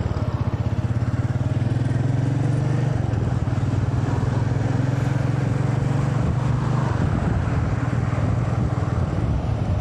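Motorcycle engine running steadily at cruising speed, with rushing wind and road noise over it; the engine note shifts slightly a couple of times.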